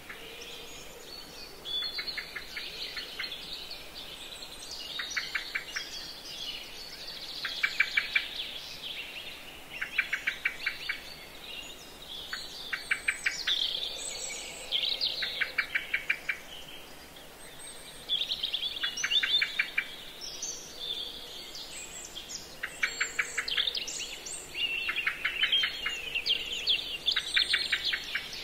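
Small songbirds singing. A short, fast trill comes back about every two to three seconds, about ten times in all, with higher warbling song between the trills.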